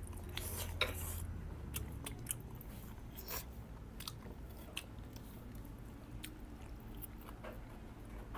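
Close-up chewing and biting while eating pork ribs, with scattered small wet clicks and crunches; a low hum in the background stops about two seconds in.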